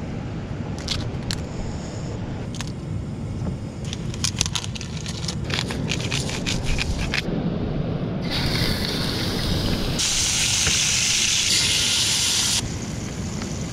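Crackling and clicks of food packaging being handled, then from about eight seconds in a steak sizzling loudly in a frying pan on a portable gas stove, a steady hiss.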